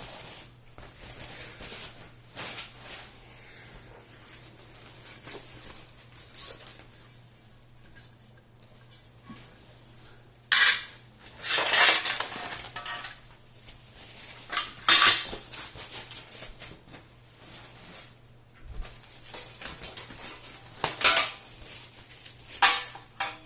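Small metal kit parts clinking and clattering as they are handled and set down, in scattered bursts, a few of them louder, over a faint steady hum.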